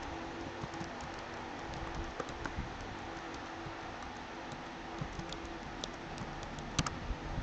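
Typing on a computer keyboard: scattered, irregular key clicks over a faint steady hiss.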